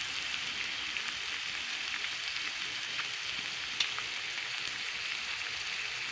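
Fatty pork pieces frying in a nonstick pan: a steady sizzle with scattered small spits and one sharper pop about four seconds in, as the fat renders out into oil.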